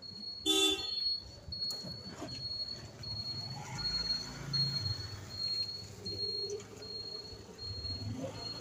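High-pitched insect chirping, an even note repeated about twice a second, with a short, loud pitched blip about half a second in and soft, low voices.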